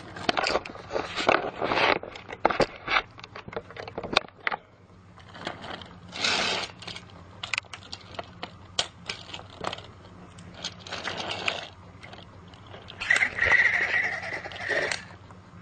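Toy train and plastic track clattering and scraping, with many irregular clicks and knocks, as the train is run backwards. A brief high-pitched tone sounds with the scraping near the end.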